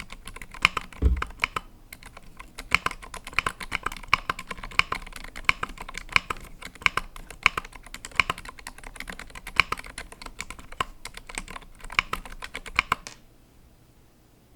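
Typing on a KBDFANS Tofu65 65% custom mechanical keyboard fitted with Zilent V2 silent tactile switches: a fast, steady run of keystroke clacks with a deeper thump about a second in. The typing stops near the end.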